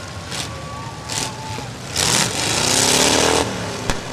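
Car engines running and revving in loud surges, pitch climbing during the longest rev, with a single sharp knock near the end.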